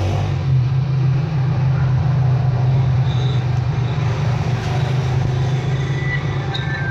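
Steady low background rumble, with a few faint short high tones and clicks near the end.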